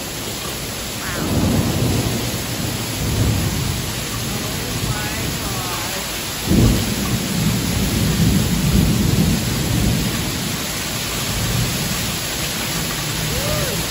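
Heavy rain pouring steadily, with deep rolling thunder; the loudest clap breaks in suddenly about six and a half seconds in and rumbles on for several seconds.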